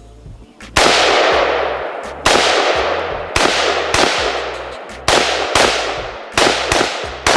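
AR-15 rifle firing single shots at an uneven pace, about nine in the stretch, some in quick pairs. Each loud crack trails off in a long echo lasting about a second.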